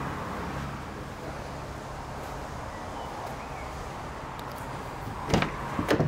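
Steady background noise, then, about five seconds in, two sharp clunks as the front door of an Audi Q5 is unlatched and swung open.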